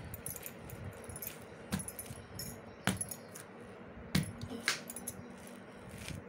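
Stiff urad dal papad dough being kneaded and slapped by hand on a stone slab. Each stroke gives a dull thud together with a clink of bangles, about five strokes spaced a second or so apart.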